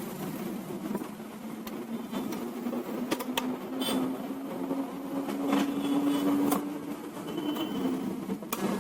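Scattered plastic clicks and knocks as an HP LaserJet P1007's casing is taken apart by hand, over a steady low buzz.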